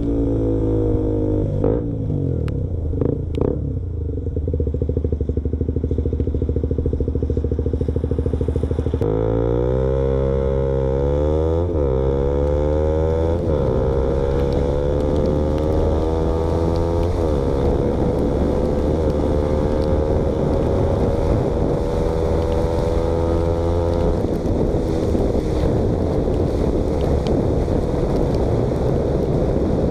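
KTM Duke motorcycle engine running through an exhaust with the baffle removed. It runs steadily at first with a few short blips, then revs rise steeply and drop back at each of two quick gear changes about a third of the way in, before settling into a slower climb in pitch.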